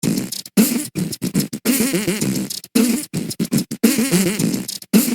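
Human beatboxing: rapid, choppy mouth and lip sounds in a rhythmic pattern, stopping and starting several times a second, with buzzing lip sounds like blown raspberries.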